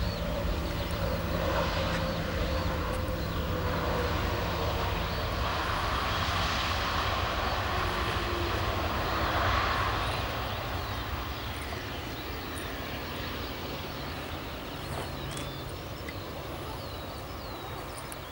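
Airbus A320's CFM56 jet engines running down during the landing rollout: a steady rumble with a whine that falls in pitch over the first few seconds, a rush that swells about nine seconds in, then the sound slowly fading as the airliner rolls away.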